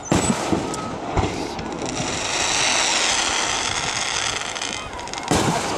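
Aerial firework shells bursting overhead: a sharp bang right at the start, another about a second later, and a heavier bang with crackling near the end, with a steady hiss of crackle and echo in between.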